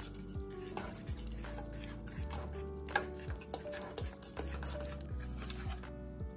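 Background music with a steady beat over a spoon stirring and scraping thick chocolate frosting in a stainless steel saucepan.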